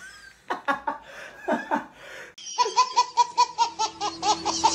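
Laughter: a few scattered breathy laughs, then from about halfway in a baby laughing hard in quick repeated bursts.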